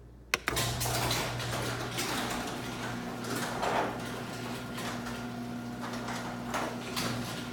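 LiftMaster Security Professional half-horsepower garage door opener starting up with a sharp click about a third of a second in. The motor then runs with a steady hum while the sectional garage door rattles and clicks as it rises.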